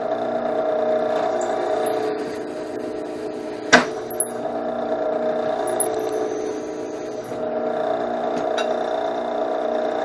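Benchtop drill press motor running with a steady hum while the bit is fed down into a flat metal bar, with brief high-pitched squeals twice. A single sharp knock sounds a little under four seconds in.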